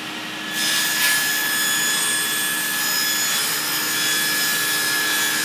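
Power saw running steadily while cutting through a piece of wood, getting louder about half a second in.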